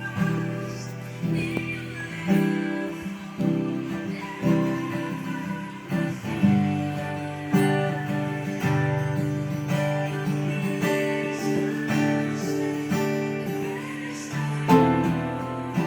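Background music: acoustic guitar strumming chords, a fresh strum every second or so.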